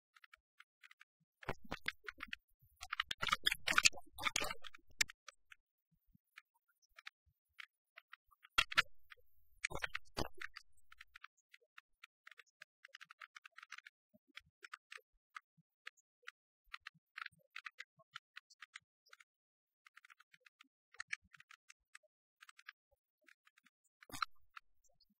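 Scattered, irregular faint clicking and crackle, with two louder bursts of scratching noise: one a couple of seconds in and a shorter one about nine seconds in.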